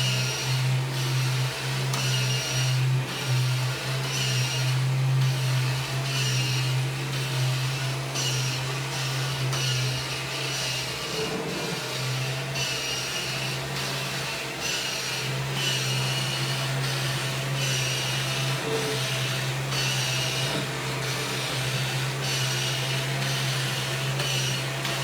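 1997 Kirby G5 upright vacuum cleaner running steadily as it vacuums, a low motor hum with a whine on top. Its higher sound swells and eases about once a second, and the low hum dips for a few seconds about halfway through.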